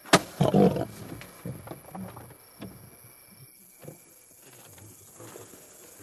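A tranquilliser dart gun fires with a single sharp crack, and a lion immediately lets out a loud roaring snarl that lasts about a second. It is followed by quieter, broken growls over the next few seconds.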